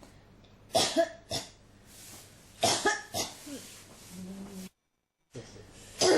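A person coughing in fits: a run of three sharp coughs about a second in, another run of coughs in the middle, then a short low vocal sound. After a brief cut to dead silence, one more cough comes near the end.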